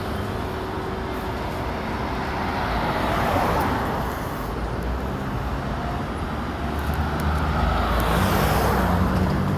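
Road vehicle noise: traffic rushing by in swells, with a low engine hum growing steadier near the end.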